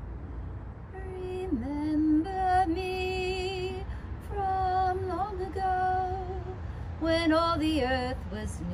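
A woman singing unaccompanied, starting about a second in: a few phrases of long held notes with vibrato and short slides between them.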